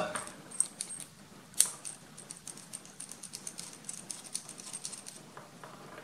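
Coaxial TV aerial plug being screwed together by hand: a run of faint, small clicks and ticks as the threaded parts turn and seat. One sharper click comes about one and a half seconds in, and rapid ticking follows through the middle.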